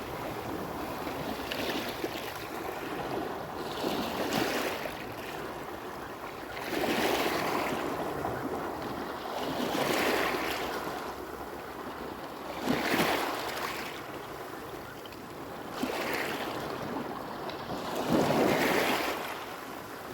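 Small surf waves washing onto the beach, one swell of rushing water about every two to three seconds.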